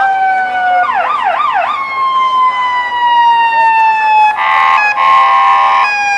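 Emergency vehicle siren on an ambulance, its slow wail gliding down in pitch, switching about a second in to a few quick warbling yelps, then back to the wail. About four and five seconds in, a horn sounds twice over it.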